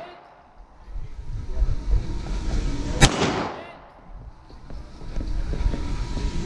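A single pistol shot about three seconds in, echoing around the indoor range, with irregular low rumbling movement and handling noise before and after it.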